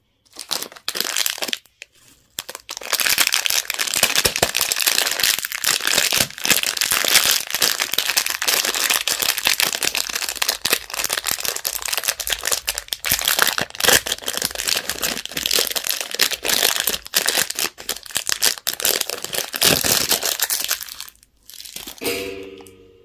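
Candy wrapper being crinkled and crumpled by hand, a dense crackling that stops about 21 seconds in. A short squeak follows near the end.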